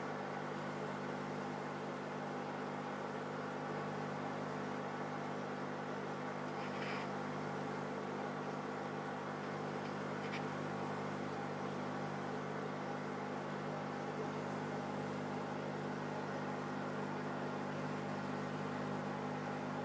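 Steady electric hum of running aquarium equipment, with two faint ticks about seven and ten seconds in.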